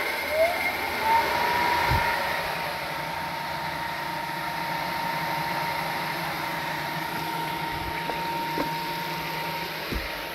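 Pelton-wheel micro-hydro turbine and its permanent-magnet generator spinning up as the water is turned on: a whine that rises in pitch over the first second, then holds steady over the hiss of the water jets on the spoons. The whine cuts off near the end with a knock.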